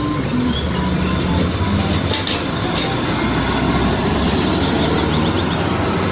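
A small Hino fuel tanker truck driving by on the road: its diesel engine runs steadily under road and traffic noise.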